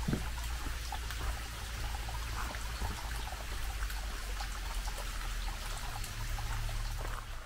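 Mountain stream flowing: a steady rush of running water.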